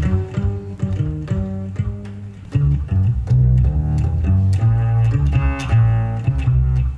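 Electric cello playing a fast, rhythmic passage of short notes in its low register.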